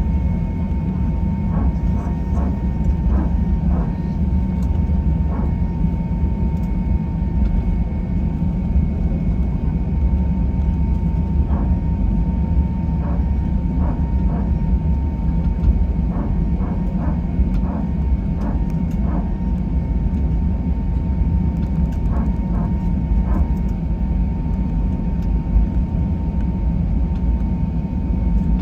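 Steady cabin noise inside an Airbus A321 airliner: a loud, even low rumble from the engines and airflow, with a steady high hum over it. Faint short ticks come in small clusters now and then.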